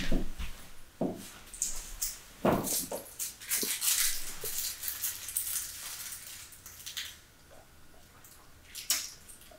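Footsteps and knocks on a wooden floor and bench, then light rustling and small clicks from hands handling a small object, dying away near the end.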